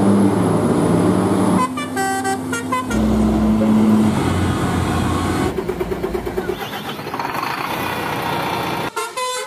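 Heavy diesel trucks driving past with their engines running, and truck horns sounding: a pitched blast about two seconds in, a low steady blast around three to four seconds, and another brief one near the end.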